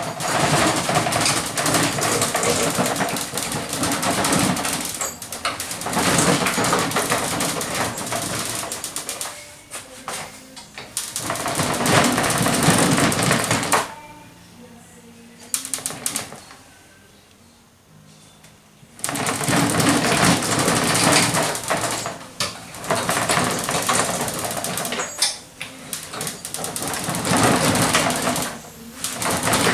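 Gasless flux-core MIG welding: the arc crackling and spitting in runs of a few seconds each, with short pauses between beads.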